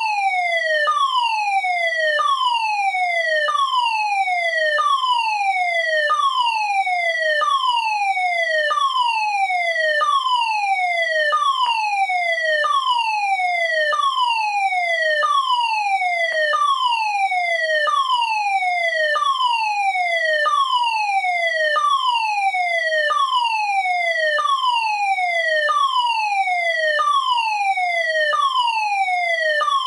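Fire alarm sounder giving a repeating falling tone: each note starts with a click and drops in pitch, one note a little over a second apart.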